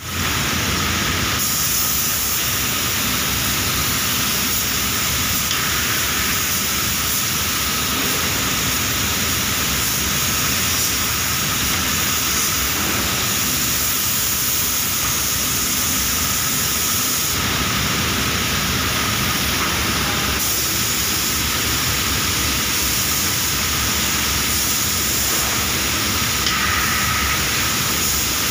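Compressed-air spray gun hissing steadily as it sprays clear lacquer, a continuous rushing noise with a faint high whistle running through it. The upper hiss shifts a little about a second in and again between about 17 and 20 seconds.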